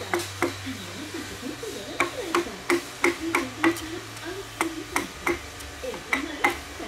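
Mallet driving a chisel into a large wooden log: sharp knocks in runs of about three a second, with short pauses between the runs, as the chisel bites chunks out of the wood.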